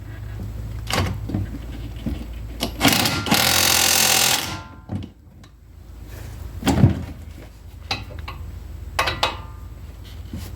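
Impact wrench hammering on a 22 mm brake caliper bracket bolt through extension adapters in one loud burst of about a second and a half, a few seconds in, with sharp clinks and knocks of metal tools before and after.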